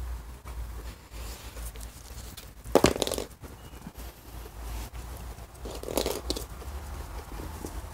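Brief rustling, crinkling noises, the loudest about three seconds in and another about six seconds in, over a low steady rumble.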